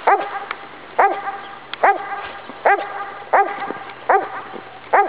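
Labrador retriever barking repeatedly: seven short barks in an even rhythm, a little under a second apart.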